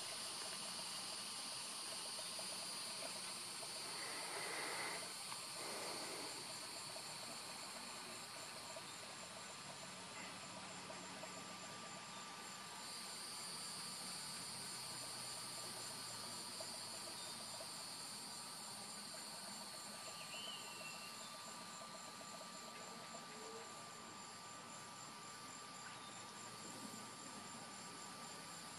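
Faint steady chorus of crickets and other insects, a high thin trill with a fine pulsing.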